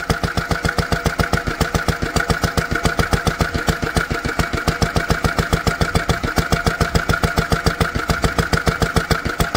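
Lister D single-cylinder stationary petrol engine running steadily with a quick, even beat of firing strokes. It is running on the last of one carburettor-full of petrol.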